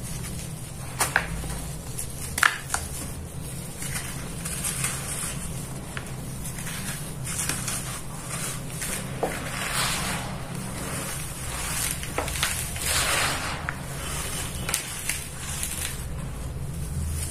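Dry, soft red dirt being crushed and crumbled by hand, clumps breaking into powder and loose soil trickling through the fingers in soft, irregular crunches and rustles. Two sharper crunches about one and two and a half seconds in are the loudest moments. A low steady hum runs underneath.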